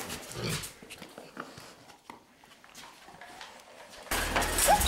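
A dog sniffing and moving about close by, with scattered soft knocks and rustles. About four seconds in, the sound jumps suddenly to a much louder, noisier background.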